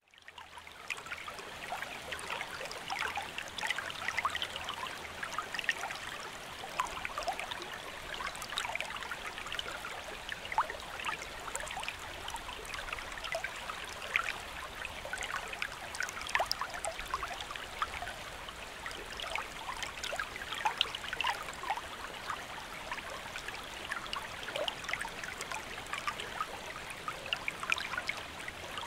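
Forest stream sound effect: water running steadily, with many small splashy ticks. It fades in over the first second.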